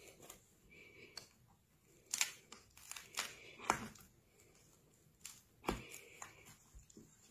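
Scattered sharp clicks and light scraping from fingers and a knife working at a ballistic panel's fabric to pull out a lodged bullet.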